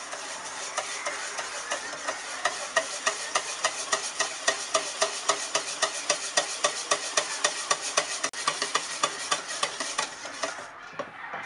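Wire balloon whisk beating a thick custard mixture in a stainless steel bowl, its wires ticking against the metal about five times a second over a wet swishing. The whisking stops about a second before the end.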